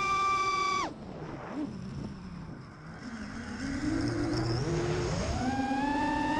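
Drone's electric motors and propellers whining at a steady pitch, then dropping sharply about a second in as the throttle is cut for a dive. They run low, quieter and uneven for a few seconds, then climb back to a steady whine near the end as power comes back on.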